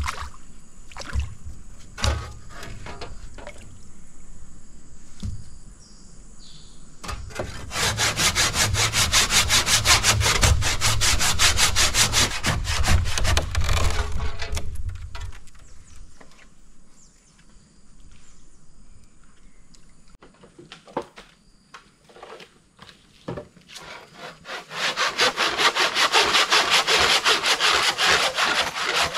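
Fast, rasping back-and-forth strokes of a hand tool, in two long bouts: one starting about seven seconds in and lasting some eight seconds, another starting about five seconds before the end. Scattered knocks and scrapes fall between them.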